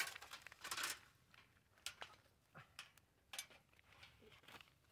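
Faint, irregular clicks and light knocks, with a short rustle at the start and another about a second in.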